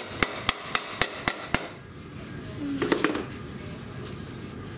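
A plastic mallet tapping a metal pull bar at the end of a floating plank floor: about six quick, sharp, ringing taps, roughly four a second, drawing the plank joint tight against the wall. The taps stop about a second and a half in, and a brief low sound follows near three seconds.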